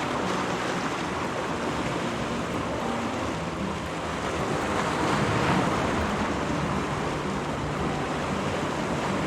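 Sea waves washing against the shore, a steady rush that swells about halfway through, with wind buffeting the microphone.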